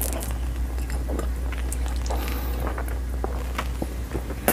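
A big mouthful of xylitol chewing gum being chewed close to a clip-on microphone: irregular wet smacks and clicks, over a steady low hum that drops near the end.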